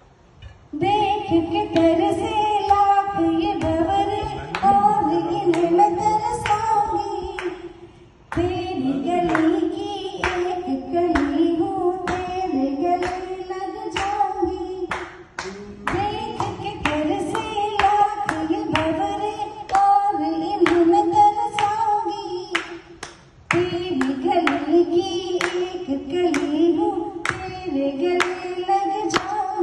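A woman singing a song into a microphone, amplified through a loudspeaker, in long phrases with short breaks, over a steady beat of sharp hits.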